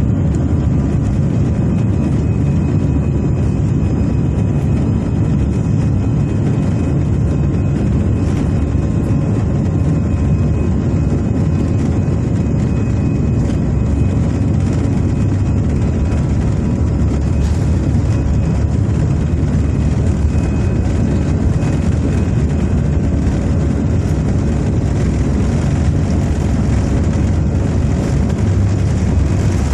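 Steady cabin noise inside an Airbus A320 airliner: the low rumble of its CFM56 jet engines and the rush of air, with a faint steady hum over it.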